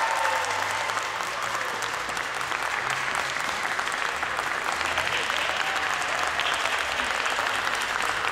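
Audience applauding, many hands clapping steadily at the end of a figure skating programme.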